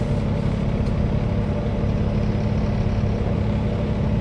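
Semi truck's diesel engine running steadily, heard from inside the cab.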